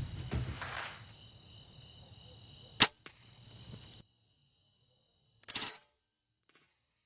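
Insects trilling steadily in the background, cut by a single sharp, loud click a little under three seconds in. The sound then drops out abruptly to silence, broken by one short burst of noise about five and a half seconds in.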